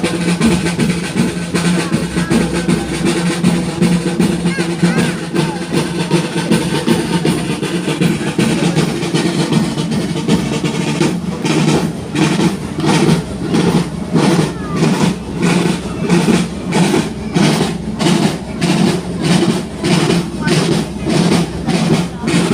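Festival street drums (tamburi) playing: a dense, continuous rolling beat, which about halfway through settles into an even pulse of roughly two strokes a second, with voices of a crowd mixed in.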